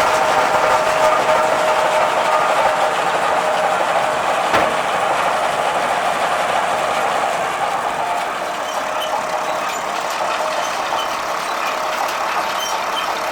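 New Holland 660 round baler running: a steady mechanical whine and rattle, with one sharp knock about four and a half seconds in. It gets a little quieter over the last few seconds.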